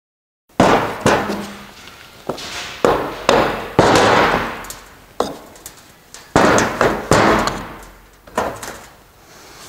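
Sharp metal clicks and scrapes in an uneven run of about ten, each ringing off briefly, starting about half a second in: a pick being worked into the dirt-packed Torx bolt heads on the aluminum housing of a Borg Warner 1356 transfer case.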